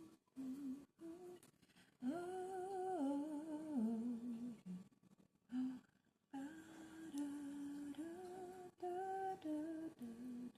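A woman humming a slow tune to herself, held notes stepping up and down in short phrases with brief pauses between them.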